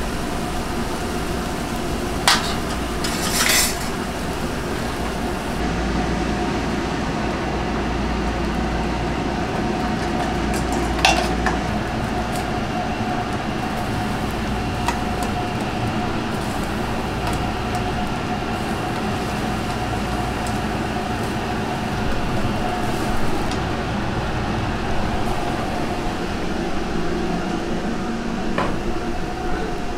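Commercial kitchen noise: gas burners and pots of broth boiling with a steady rushing hum, broken by a few sharp clinks of a metal ladle against the pots and earthenware bowls as soup is stirred and ladled.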